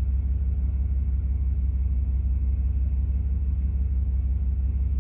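Vehicle engine idling: a steady low rumble with an even pulse.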